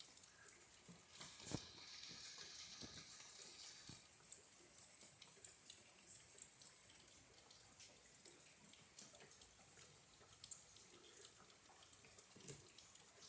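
Faint patter and dripping of rain, a low hiss scattered with small ticks, with one sharper knock about a second and a half in.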